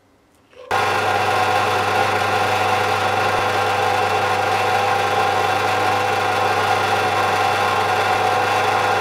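Small bench drill's electric motor running steadily at speed, a hum with a constant whine over it, starting abruptly under a second in.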